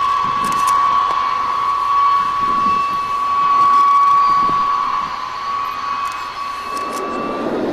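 Hawker Sea Fury T.20's radial engine running on the ground with its propeller turning, under a steady high-pitched whine. Near the end the whine fades and a rougher, fuller engine noise takes over.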